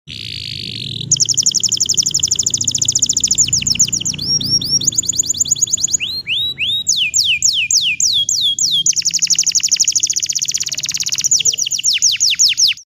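Green domestic canary singing a continuous song: fast rolling trills of high repeated notes, a run of downward-sweeping whistled notes in the middle, then another rapid trill that cuts off suddenly at the end.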